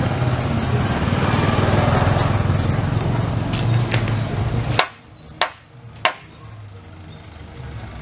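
An engine running with a steady low rumble that cuts off abruptly a little over halfway through. Three sharp clicks follow, about half a second apart, and then a quieter background.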